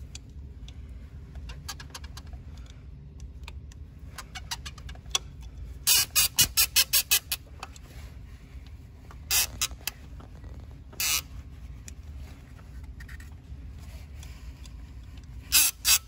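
A hand tool working a fuel hose and its clamp, making several short runs of sharp, rapid clicks, about six a second, over a low steady hum.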